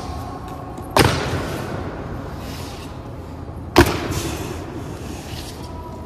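Honour guard's boots stamping on a hard floor in slow ceremonial march, two loud echoing strikes a little under three seconds apart.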